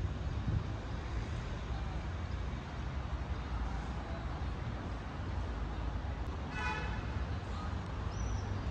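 Steady city road-traffic rumble, with one short horn toot about two-thirds of the way in.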